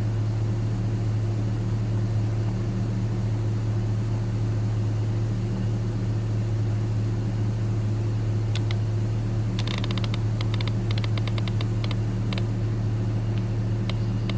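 Idling car giving a steady low hum, with a quick run of light clicks about ten seconds in.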